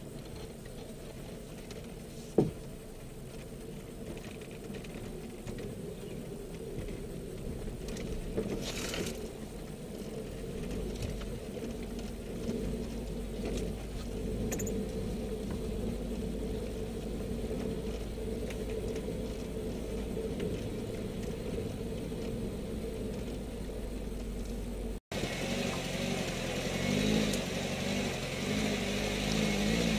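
Suzuki Samurai 4x4's engine running steadily at low revs while crawling over an off-road track, with one sharp knock about two seconds in. After a cut near the end the engine is louder.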